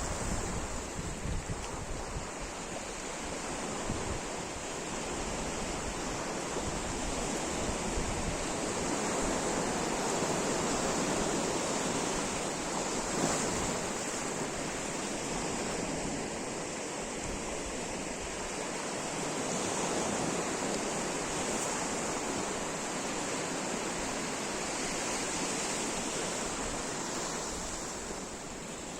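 Sea surf breaking and washing up the beach in slow swells that rise and fall every several seconds.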